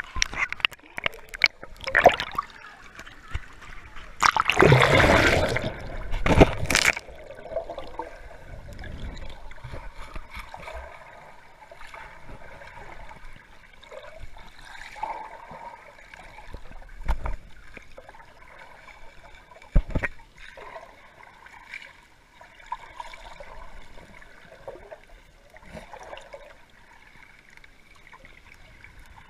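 Water sloshing and splashing around a camera moving in and out of a river, with a loud splash about four to seven seconds in. After that, quieter muffled underwater gurgling with a few sharp knocks.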